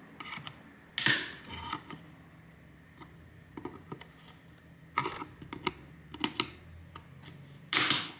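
Hard plastic clicks and taps from a laptop's plastic screen bezel being pushed and worked into place around the display, with three louder clacks about one, five and eight seconds in.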